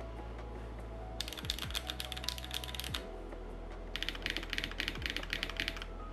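Typing on a custom 60% mechanical keyboard with Cherry MX Black Hyperglide linear switches in a gummy O-ring mount. A fast run of keystrokes starts about a second in, stops for about a second near the middle, then another run follows.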